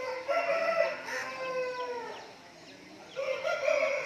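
Game-fowl roosters crowing: one long crow at the start, and another beginning about three seconds in.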